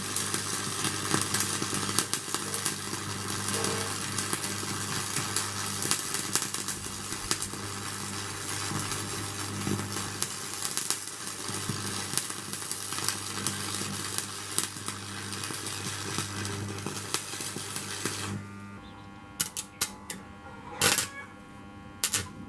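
Stick welding arc crackling steadily over a steady low hum. The arc stops about eighteen seconds in, followed by a few sharp taps.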